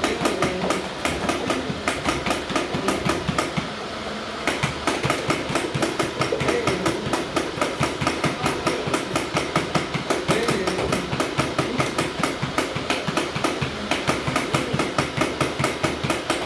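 Motorized Nerf blaster firing full-auto: a rapid, even stream of shots with its motor running, pausing briefly about four seconds in before firing on.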